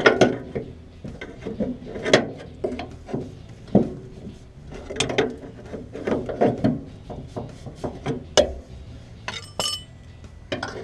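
Steel suspension parts knocking, clunking and scraping irregularly as a stuck Mopar torsion bar is worked loose from its mount, with a brief metallic ring near the end.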